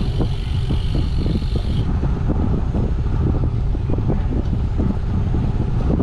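Wind buffeting the microphone and tyre and road rumble from a road bicycle rolling along a paved path, with many small knocks from bumps in the surface. A higher hissing buzz runs along with it and stops about two seconds in.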